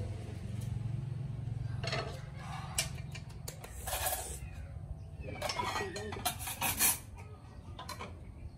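Aluminium pots, lids, bowls and a ladle clinking and clattering as soup is dished up, the loudest clinks near the end. A low steady hum fades out about two seconds in.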